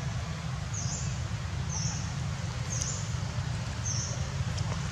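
Outdoor ambience with a steady low rumble and a short, high-pitched chirp repeating about once a second, four times.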